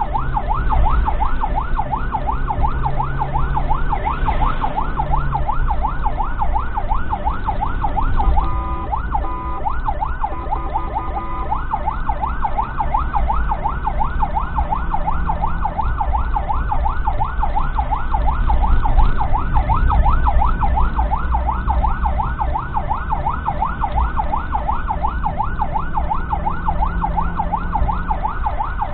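Ambulance siren on a fast yelp, its pitch sweeping up and down about three times a second, heard from inside the ambulance's cab over low engine and road rumble. About a third of the way in it switches for a few seconds to a stepped pattern of alternating steady tones, then goes back to the yelp.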